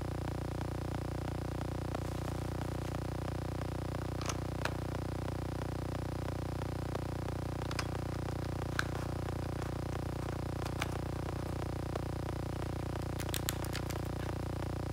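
A steady electrical or mechanical hum with a few faint clicks and taps scattered through it, including a quick cluster near the end.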